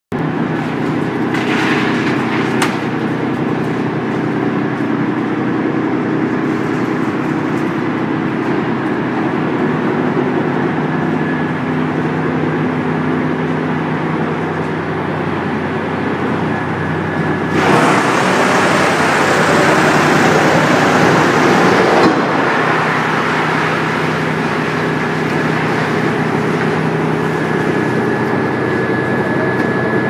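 Electric drum wood chipper running with a steady hum. A bit past halfway a louder rough crunching noise takes over for about four seconds as wood goes through the drum and is cut into chips, then the steady hum returns.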